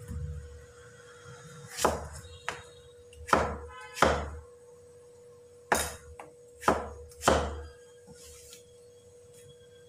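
Cleaver chopping winter melon into chunks on a round chopping board: about seven sharp knocks of the blade hitting the board, spaced irregularly.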